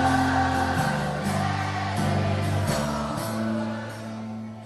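Rock song with a sung vocal line over sustained low chords that change every second or so, getting quieter toward the end.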